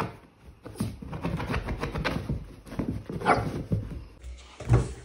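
Italian greyhound barking and whining in short bursts. Its paws scratch and dig at an upholstered armchair cushion.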